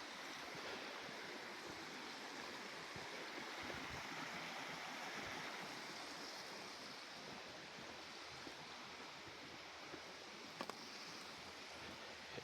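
Steady rushing of a stream's running water, with a couple of faint clicks near the end.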